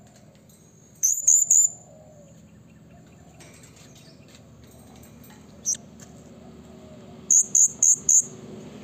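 Blue-crowned hanging parrot (serindit) calling with short, high-pitched notes in quick runs: about four notes a second in, a single note midway, and four more near the end. These are the loud calls that draw and provoke rival serindit.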